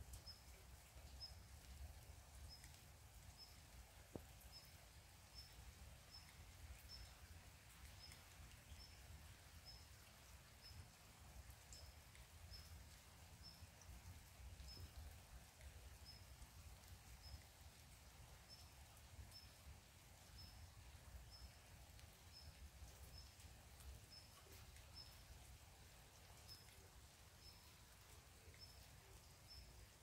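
Faint forest ambience: a short, high chirp repeated steadily about once a second, over a low rumble and a faint hiss of light rain.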